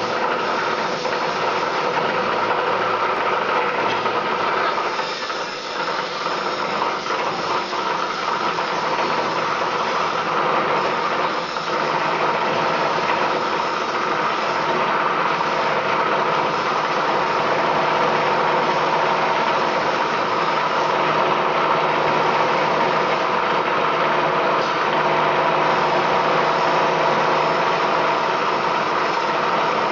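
PP/PE plastic film agglomerator running, its motor-driven rotor churning and cutting the woven polypropylene bags being fed into the drum. A loud, steady machine hum with a whine over a rough grinding noise.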